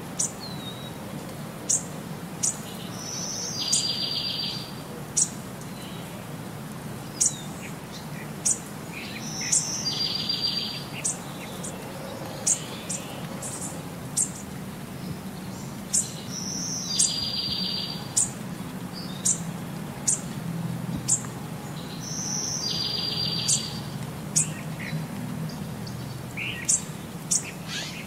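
Birdsong laid as a background track: short high chirps about once a second, with a buzzy trill recurring about every six and a half seconds, over a steady low hum.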